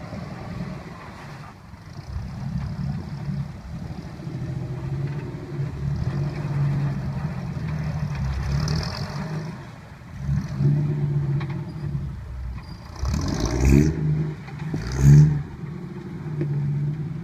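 Jeep CJ7 engine pulling under load as it crawls up a steep slickrock ledge. It revs up in several surges, with two hard revs near the end.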